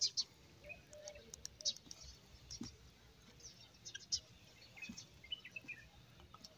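Birds chirping in the trees: many short, scattered high chirps, with a few falling notes around the fifth second.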